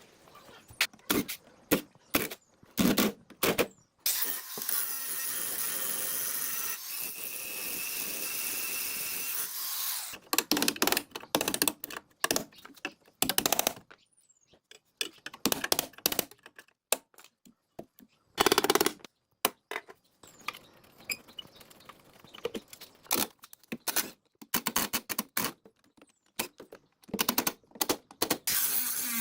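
Metal parts and hand tools clinking and knocking against each other in irregular bursts while an old generator is being worked on. About four seconds in, a steady hissing whirr starts and runs for roughly six seconds before stopping.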